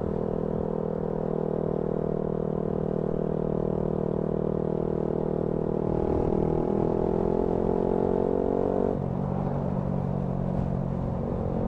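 Honda Grom's 125cc single-cylinder engine running on the move: a steady drone, then rising in pitch under acceleration from about six seconds in, dropping sharply about nine seconds in as it shifts up a gear, then holding steady.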